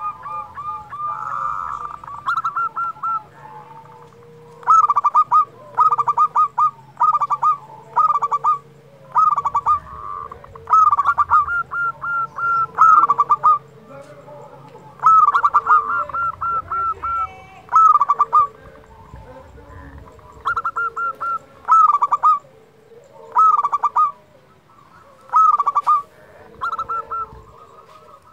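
Local zebra dove (perkutut) singing: its staccato cooing phrases of rapid, high coo notes come one after another every second or two, with a few short pauses.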